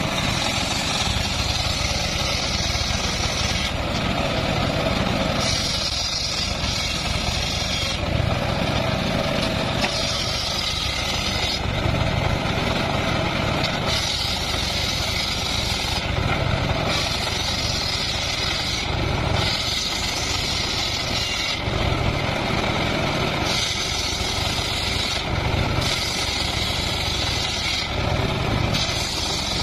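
Homemade engine-driven circular table saw ripping timber planks. The motor runs steadily throughout, and the blade's high cutting whine rises and falls away again with each pass, about a dozen cuts, each lasting one to two seconds.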